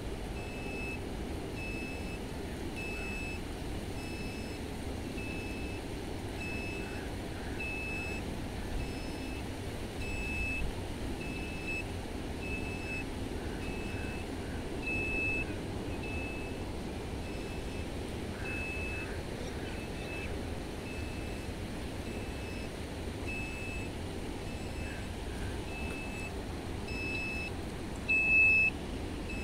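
Borewell drilling rig's engine running steadily, with a short high beep repeating a little under once a second like a truck's reversing alarm. A brief louder knock comes near the end.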